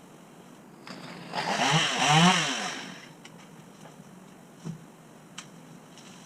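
A chainsaw revved up and back down for about a second and a half, with a few faint clicks before and after.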